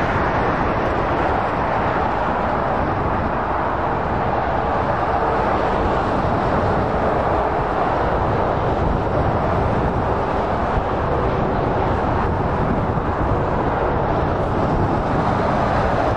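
Steady motorway traffic noise: lorries and cars passing at speed, their tyres and diesel engines blending into one continuous rush.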